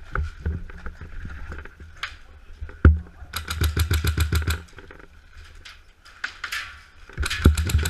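Airsoft gun firing on full-auto: a single sharp crack about three seconds in, then a rapid burst of about a second at roughly a dozen shots a second, with another burst starting near the end.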